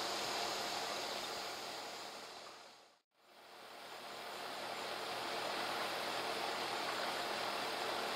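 Steady outdoor background hiss with no distinct events. It fades out to silence about three seconds in and fades back in, the sign of an edit between two shots.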